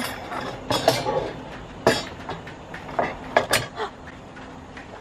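Black wire window-box holder clinking and knocking against its metal hooks as it is worked into place: about five separate sharp clanks in the first three and a half seconds.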